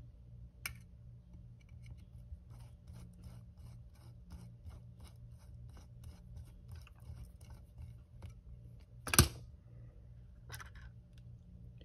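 Screwdriver turning out the screws of an SU-type carburetor's choke assembly: a run of small scraping clicks, about three a second. About nine seconds in comes a single louder knock, then a lighter click, over a steady low hum.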